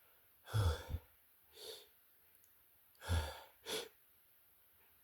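A person's breathy bursts while fighting off sneezes: two stronger ones, about half a second and three seconds in, each followed by a softer breath.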